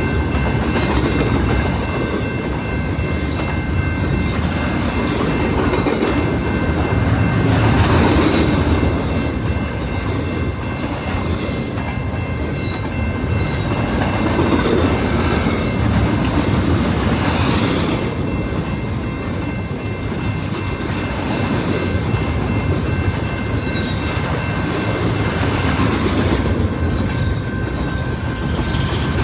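A freight train rolling past, loud and steady throughout, its wheels clicking over rail joints, with a rumble underneath and a thin, steady high-pitched ringing from the wheels on the rails.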